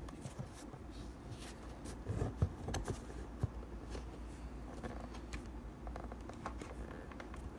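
Handling noise: scattered soft clicks, taps and rustling as objects are moved about, over a low steady hum.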